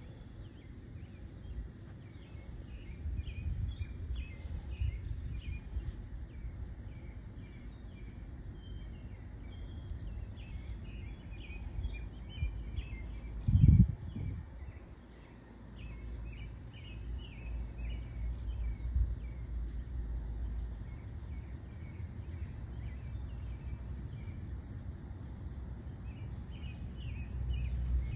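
Small birds chirping over and over in the background, over a low, uneven rumble of wind on the microphone. One brief, loud low thump comes about fourteen seconds in.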